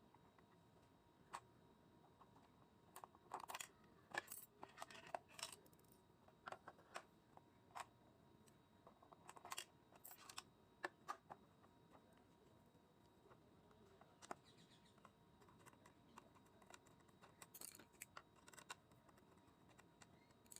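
Scattered faint clicks and light knocks of an electric iron's plastic and metal parts being handled and fitted back together, coming in small clusters.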